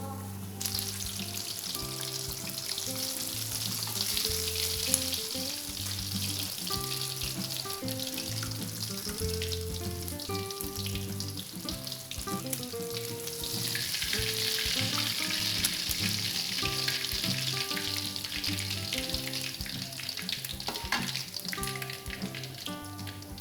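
Fish frying in hot oil in a wok, a steady sizzle that swells louder about halfway through and eases off near the end, with background music.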